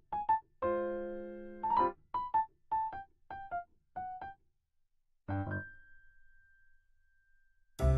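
Background music: a light tune of short, separate notes, with a held chord about a second in and another chord about five seconds in whose top note rings on and fades.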